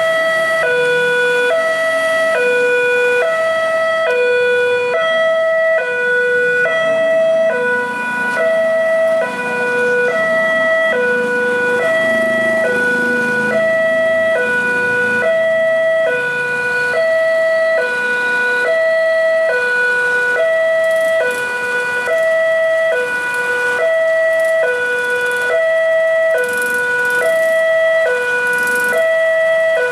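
Railway level-crossing warning alarm sounding a loud electronic two-tone signal, alternating a higher and a lower note about every half second without a break. A low vehicle rumble rises and fades in the middle.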